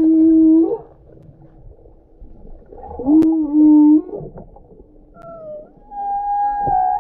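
Whale calls: long, drawn-out pitched moans. A low call sounds at the start and another about three seconds in, then a higher call sounds near the end.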